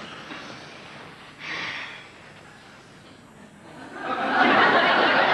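Studio audience laughing, swelling up about four seconds in and still going at the end.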